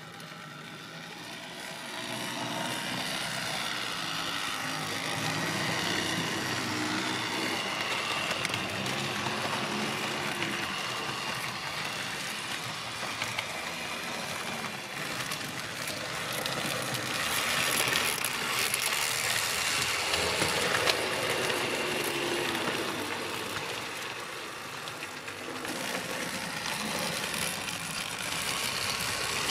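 HO-scale model trains running on the track: a continuous rolling rattle of small metal wheels on rail with motor hum, a little louder about eighteen to twenty seconds in, and a model steam locomotive passing near the end.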